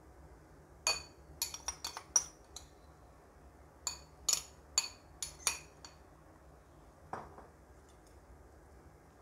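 A metal spoon clinking against a china bowl and plate while scraping out masala, in two quick runs of sharp ringing clinks and one more clink near the end.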